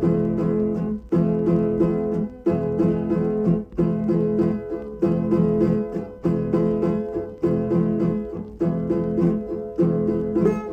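Instrumental break of a hymn played by a plucked-string ensemble: acoustic guitars strum chords in a steady rhythm, with a plucked melody over them and no singing.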